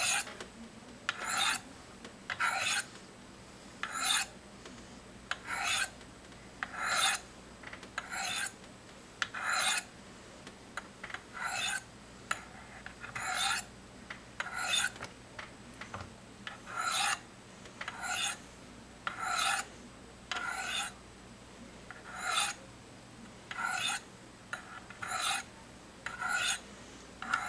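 A steel knife blade drawn down the corners of the medium ceramic rods of a Spyderco Sharpmaker, about twenty short scraping strokes at an even pace of roughly one every second and a half, sharpening the edge.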